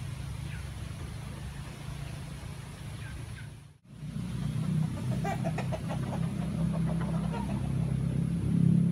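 Wind buffeting the microphone, a steady low rumble. After a brief break about four seconds in it comes back louder, with chickens clucking over it.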